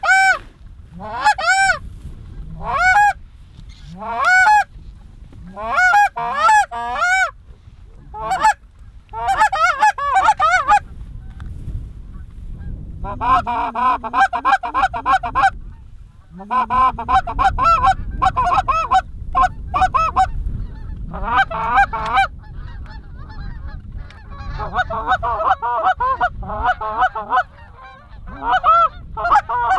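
Specklebelly goose yodel calling: high, arching two-note calls repeated about once a second, then from about halfway, dense overlapping chatter in bursts of a few seconds as a flock is worked toward the decoys.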